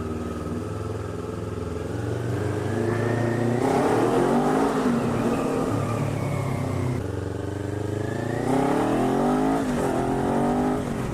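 Motorcycle engine running under the rider, its pitch climbing as it accelerates about three seconds in, easing off, then climbing again near the end.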